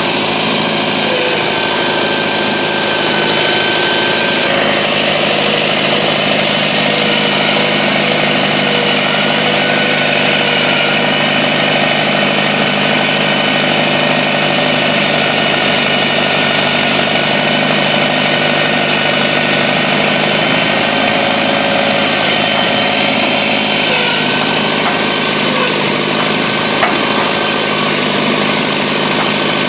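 Engine of a pile-boring rig's winch running steadily at a constant speed, with a slight pitch shift now and then.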